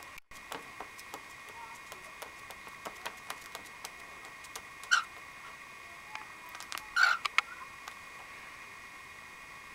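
Cockatiel giving one short chirp about halfway through, then a brief run of quick chirps about two seconds later, with faint ticks in between.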